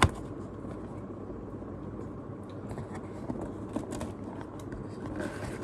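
A sharp knock, then light rustling and tapping of a cardboard box and its packaging being opened and handled, over a steady low background hum.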